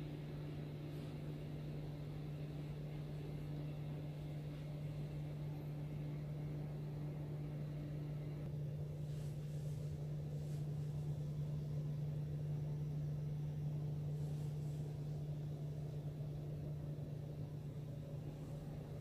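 A steady low machinery hum: one deep tone with a fainter one above it, over a low rumble. A few faint light ticks come around the middle.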